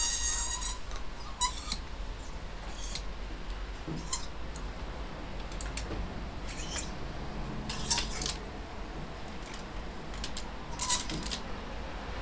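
Clothes hangers sliding and clinking along a clothes rail as garments are pushed aside, in short scraping bursts every second or so, over a low steady hum.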